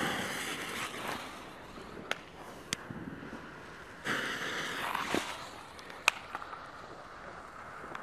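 Fuses of two Weco Super Böller 2 firecrackers fizzing and sputtering, in two hissing spells of about a second each, one at the start and one about four seconds in, with a few short sharp cracks in between. There is no main bang: both firecrackers are misfires.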